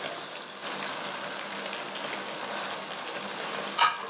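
Chicken gravy sizzling steadily in a kadhai while curd is poured in, with a few short clatters near the end.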